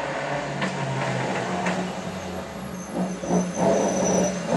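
Opel race car's engine running as it comes by, steady at first, then surging unevenly over the last second or two.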